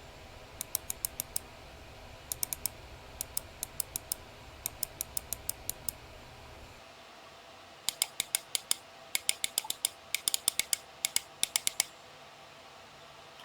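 Typing sound test on an Akko 5075S custom mechanical keyboard with hand-lubed Akko switches, lubed stabilizers and an electrical-tape mod. Short bursts of four or five keystrokes come first, then steadier typing from about eight seconds in until near the end.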